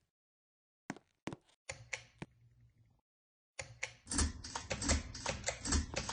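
Ceiling fan with a low motor hum and many irregular clicks and rattles over it. A few separate sharp clicks come first. The hum starts a little under two seconds in, breaks off for about half a second near the middle, then comes back with the clicking much denser and louder.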